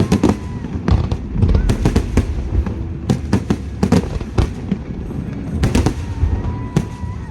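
Aerial fireworks bursting: a rapid, irregular barrage of bangs and deep booms with crackling between them.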